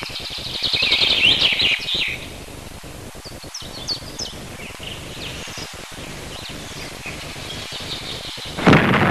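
Small songbirds chirping, busiest in the first two seconds, then scattered chirps. Near the end, a sudden loud blast with a long noisy tail: an explosive set off in the water to stun fish.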